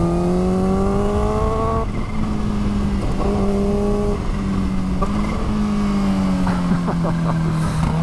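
Kawasaki Ninja H2's supercharged inline-four engine pulling on the road. Its pitch rises over the first two seconds, then holds fairly steady and eases slowly down over the last few seconds.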